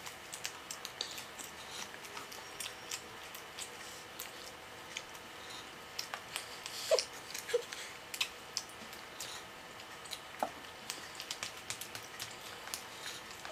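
Two people eating masala dosa by hand: quiet chewing with many scattered soft clicks and smacks as pieces are torn off and eaten from plates.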